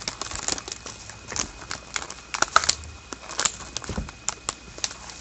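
A trading-card pack wrapper being torn open and the cards handled: irregular crinkling and sharp little clicks, with a soft thump about four seconds in.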